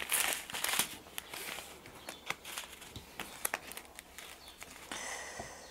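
Plastic packaging rustling and crinkling as hands handle a diamond-painting kit: the canvas in its plastic sleeve and a strip of small sealed bags of resin drills. It is loudest in the first second, then thins out to scattered small clicks and rustles.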